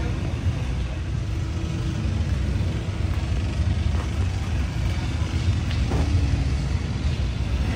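Steady low rumble of motorcycle engines running, with a few faint clicks.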